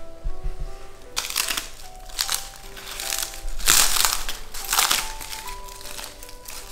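Charred, brittle paper wrapping crackling and crumpling as it is peeled off a charcoal-roasted sweet potato, in five or six short bursts, the loudest about four seconds in. Background music plays throughout.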